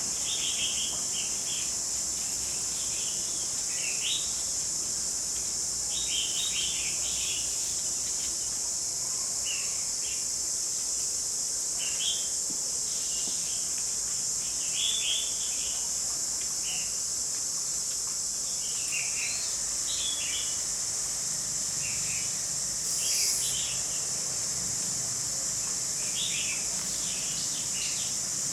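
Short bird chirps and calls scattered every second or so, over a steady high-pitched insect drone.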